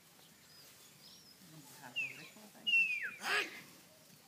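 Two high, sharp whistles, each falling in pitch, about two seconds in and again a moment later: a handler's herding whistle giving commands to a dog working cattle. A short burst of noise follows just after the second whistle.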